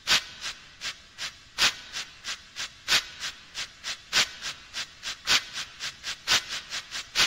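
Steam locomotive chuffing at a steady pace, about three exhaust beats a second, with every fourth beat or so louder.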